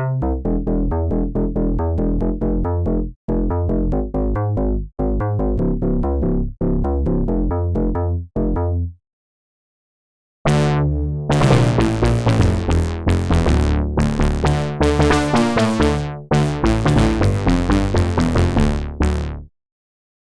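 Integrate virtual analog software synthesizer playing bass presets: a rhythmic bass line of short repeated notes that stops about nine seconds in, then, after a short pause, a brighter bass preset with sharp-attack notes that stops just before the end.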